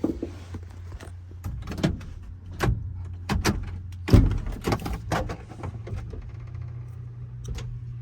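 Seatbelt hardware and plastic interior trim panels in a pickup cab being handled and pulled loose: a string of clicks, rattles and knocks, the loudest about halfway through, over a steady low hum.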